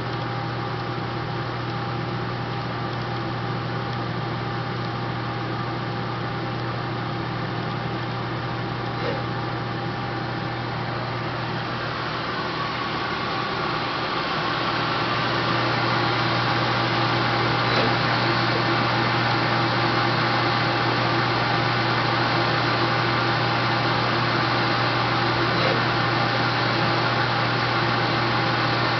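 Nardini Fast Trace CNC lathe running, a steady machine hum with a thin whine over it. It grows louder a little under halfway through and holds at the higher level.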